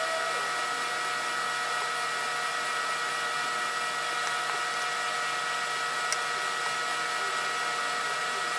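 Electric hair dryer running steadily at one setting: a smooth hiss with a few faint steady motor whines, used to dry freshly brushed white primer on wooden cutouts.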